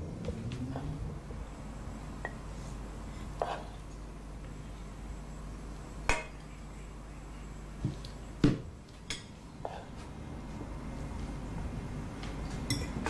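Scattered clinks and knocks of plates, cutlery and a serving spoon against a pot as food is dished out at a table, the sharpest about six and eight and a half seconds in, over a low steady hum.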